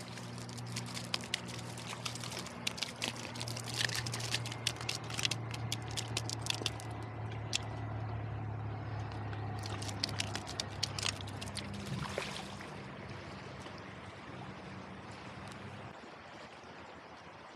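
Shallow creek water running over stones, with many irregular sharp clicks and crunches of gravel through the first twelve seconds as a landed fish is handled on the stony bank. A steady low hum underneath stops near the end.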